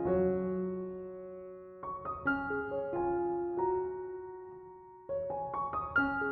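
Background music: soft piano, chords struck every few seconds and left to ring and fade.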